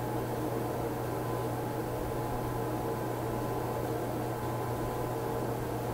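Steady low hum with a faint hiss underneath, unchanging throughout: background room tone on the microphone.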